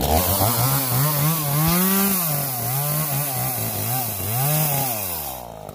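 Two-stroke chainsaw cutting, its engine pitch rising and falling several times in a row.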